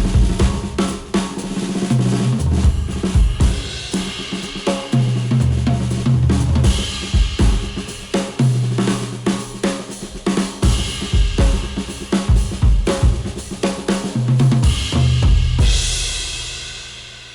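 Instrumental music with a full drum kit (snare, kick, hi-hats, cymbals) over a bass line, played through HIFIMAN HE1000 V2 planar-magnetic headphones and picked up by microphones at the earcups. The track fades out near the end.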